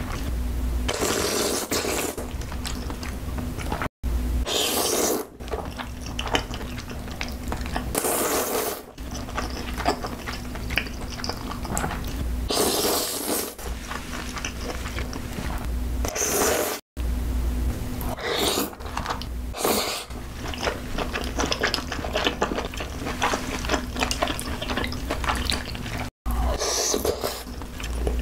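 Close-miked slurping and wet chewing of cream-sauced noodles: about seven loud slurps of roughly a second each, with softer chewing and smacking between them. The sound drops out abruptly three times.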